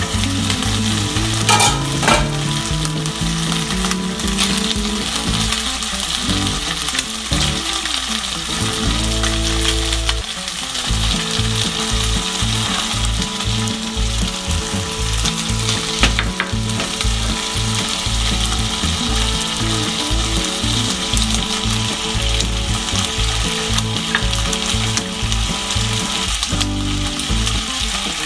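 Cubed bacon and halved cherry tomatoes sizzling in hot oil in a frying pan, a steady dense crackle with occasional sharper pops.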